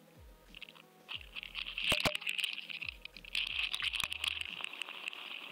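Underwater audio from a GoFish Cam inside its waterproof housing: a steady hiss with crackling and scattered clicks, including two sharp clicks about two seconds in.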